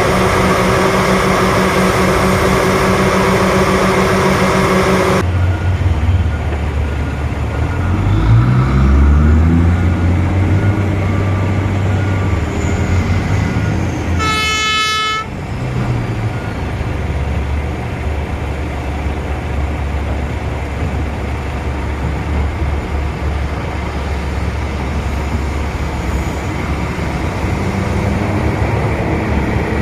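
Heavy diesel engines of a mining excavator and haul truck running. One engine revs up about eight seconds in, and a single horn blast of about a second sounds about halfway through.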